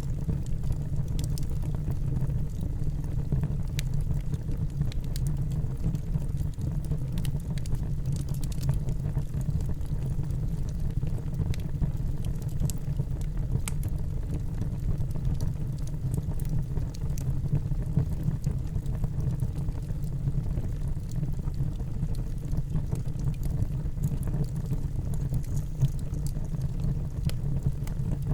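Fire burning in a fireplace: a steady low rumble of the flames with scattered sharp crackles.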